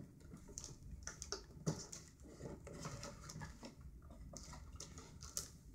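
Faint scraping, tapping and small knocks of a rigid smartphone box being handled as its lid is worked loose and lifted off, with one sharper knock about a second and a half in.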